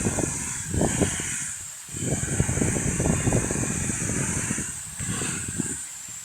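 Outdoor ambience: a steady high hiss that swells and fades every second or so, over irregular low rumbling and scattered knocks.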